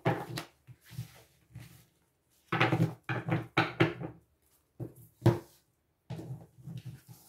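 Oracle cards being shuffled and drawn onto a table: irregular rustling and soft knocks, with one sharper tap about five seconds in.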